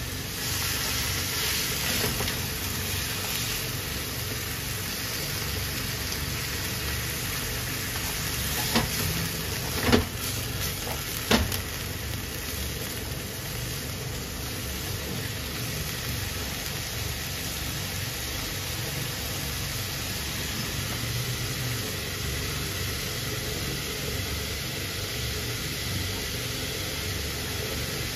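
Carrot and onion sizzling as they sauté in oil in a frying pan, stirred with tongs. Three sharp clicks of the tongs against the pan come about nine to eleven seconds in, over a steady low background noise.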